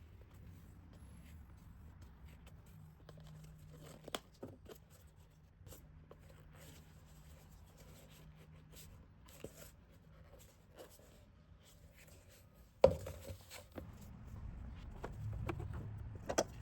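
Hand work on a car's plastic air intake duct: scattered small clicks and rustles, with electrical tape being pulled and wrapped around a cracked intake boot. One sharp knock comes about 13 seconds in, followed by busier handling noise.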